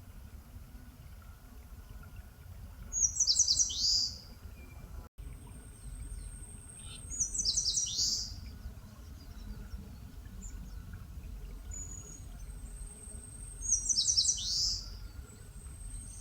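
Eastern crowned warbler singing three times, about every five seconds. Each phrase is a quick run of high notes ending in a falling slur.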